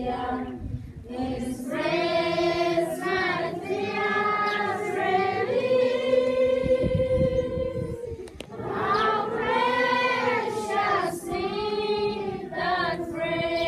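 A large group of schoolchildren singing together as a choir, in long held phrases with short breaks between them.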